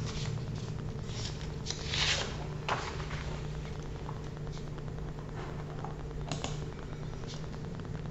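Quiet room tone: a steady low hum with a few faint clicks and rustles scattered through it.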